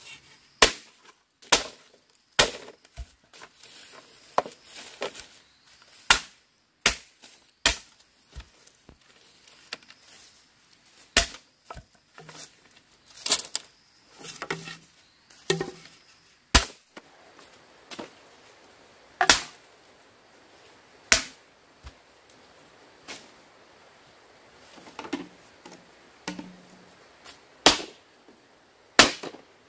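A machete chopping into bamboo: sharp, separate chops, about one a second at first, then spaced a few seconds apart.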